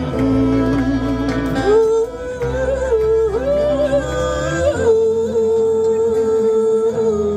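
Live band music: a slow wordless vocal melody of long held notes that waver and bend, over sustained low chords.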